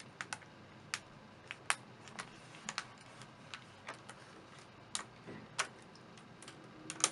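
Irregular light clicks and taps of fingers pressing a bent aluminum screen bezel back against a laptop's lid, the bezel not staying stuck.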